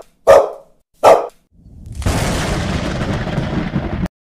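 Outro sound effects: two short dog barks, then a rush of noise swelling about a second and a half in to a loud boom-like blast lasting about two seconds, which cuts off suddenly.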